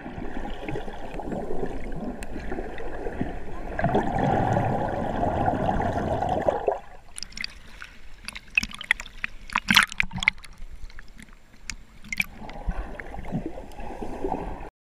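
Water heard through a submerged action camera: a dull, churning underwater noise. About seven seconds in the camera comes up to the surface, and the noise gives way to scattered splashes and drips. Near the end it goes under again and the dull churning returns.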